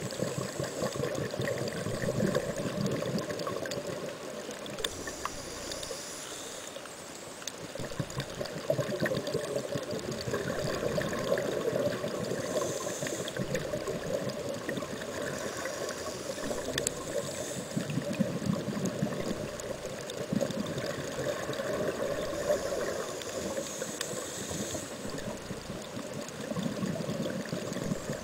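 Underwater water noise picked up by a camera filming on a coral reef: a steady gurgling, crackling wash, with short higher hissing spells now and then.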